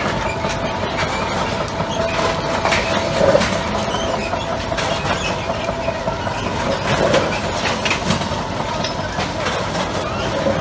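Track renewal train working: a steady machinery drone with a constant whine, broken by scattered metallic clicks and clanks.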